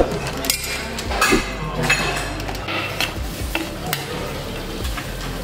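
A metal spoon scrapes and clinks against a large metal cooking pot as cooked biryani rice is scooped out. There are several short scrapes and knocks.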